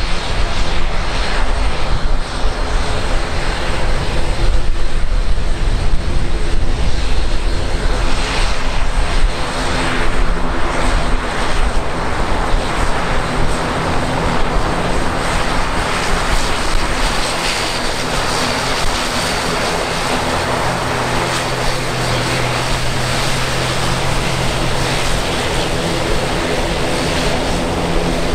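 Aircraft engines running with a steady drone of several held tones. A heavy low rumble dominates the first several seconds, then eases.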